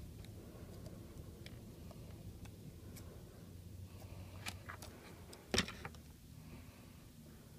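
Scattered light clicks and taps from small tablet parts and tools being handled during an iPad 2 screen repair, with one sharper click a little past halfway, over a steady low hum.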